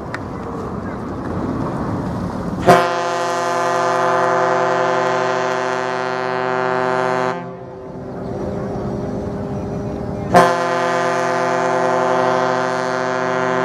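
Large ship's whistle (horn) sounding two long blasts, each held for about five seconds. The first starts about two and a half seconds in; the second starts about ten seconds in. These are the signal blasts given as a tanker and another ship pass at close range, which the uploader reads as a signal for both to slow down.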